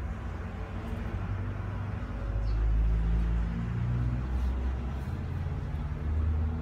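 A low rumble with steady engine-like tones, louder around the middle and again near the end, like a motor vehicle running close by.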